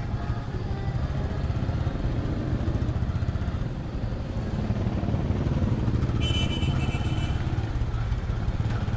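Motorcycle engine running steadily as the bike rides along a street. About six seconds in, a high-pitched tone sounds for about a second.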